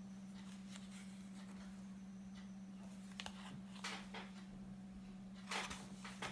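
Quiet room tone with a steady low electrical hum, broken by a few brief soft rustles or taps in the second half, the loudest about five and a half seconds in.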